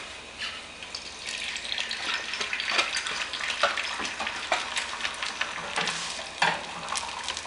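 Beaten eggs sizzling in hot oil in a frying pan: a steady hiss with scattered light clicks of a utensil.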